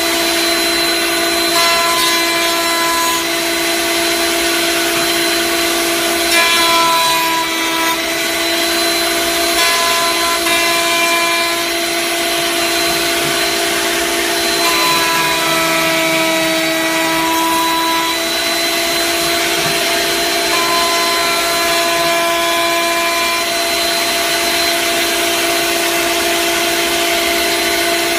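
Router in a router table running steadily with a high whine as a wooden board is fed along the fence past the bit, with a vacuum pulling dust through the hose on the fence.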